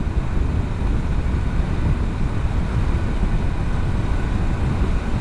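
Motorcycle riding at speed: a steady rush of wind buffeting on the microphone over the faint drone of the engine.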